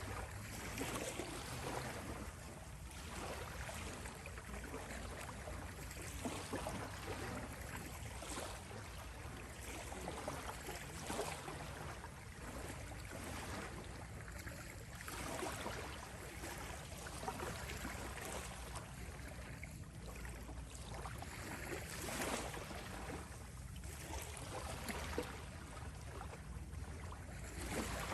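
Calm ocean water ambience: a steady low rumble with water sloshing and swishing in irregular surges every second or two.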